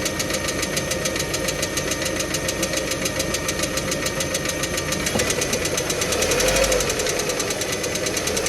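Engine running with a fast, even knocking in time with its turning; the engine is revved briefly about six seconds in. The knock is the unexplained fault that the owner is trying to identify.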